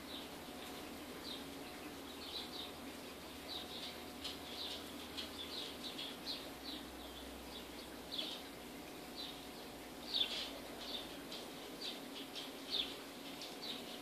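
Short, high chirps, several a second and unevenly spaced, running on throughout, with a faint steady low hum underneath. The spider's web-spinning itself is not heard.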